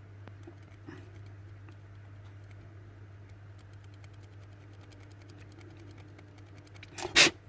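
Faint small clicks and taps of hands working on a plastic module, over a steady low hum, then one loud sharp knock near the end.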